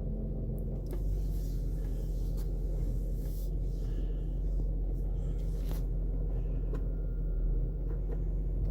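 Range Rover 4.4-litre TDV8 diesel idling in neutral with the steering wheel turned to the right, and a faint clicking from the front left over the engine's hum. The clicking comes on only when steering right and does not follow road speed; its cause is unknown, and a garage suspects the gearbox.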